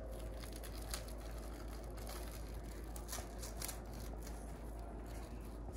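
Faint rustling and scattered light clicks of a bamboo sushi mat and plastic wrap being handled while a sushi roll is rolled up.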